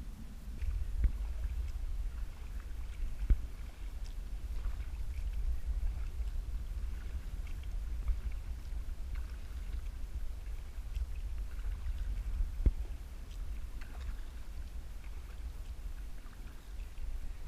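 Kayak out on the water: a steady low rumble with faint water sounds, and three sharp knocks, about a second in, a few seconds later and again near the end.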